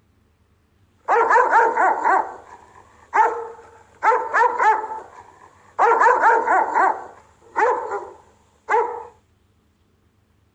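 Rottweiler barking as a guard dog, in six quick bouts of several barks each, starting about a second in and stopping about nine seconds in.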